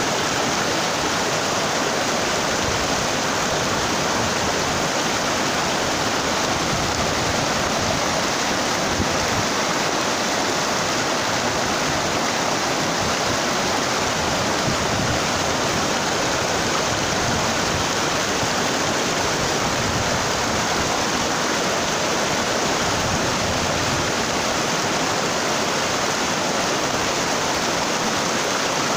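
Rocky stream rushing over and between boulders in a small rapid: a steady, even rush of water.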